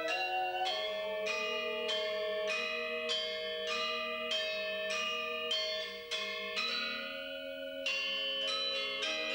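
Two Balinese gender wayang, bronze-keyed metallophones with bamboo resonators, played with mallets in a quick run of ringing, overlapping notes, with a bamboo suling flute holding long notes above. The strokes thin out briefly a little past halfway, then pick up again.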